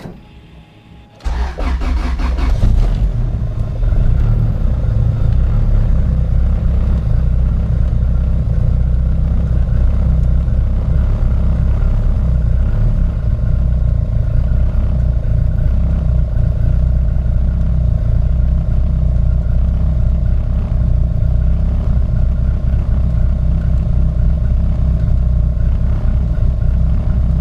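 Turbocharged Acura Integra's four-cylinder engine cranking on the starter for a couple of seconds, catching, then settling into a steady idle.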